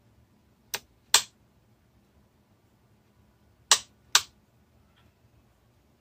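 Four sharp clicks in two quick pairs, one pair about a second in and another near the four-second mark: the beacon toggle switch on an RC transmitter being flipped to change the roof beacon lights' mode.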